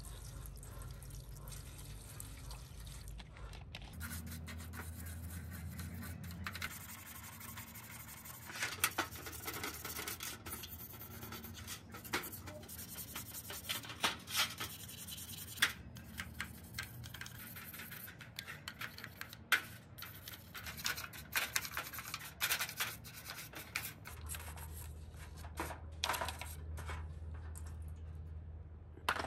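Toothbrush scrubbing a plastic power-drill housing in a tray of water, with splashing, pouring and dripping water and irregular clicks and knocks of the part being handled. A low hum comes in twice, for a few seconds each time.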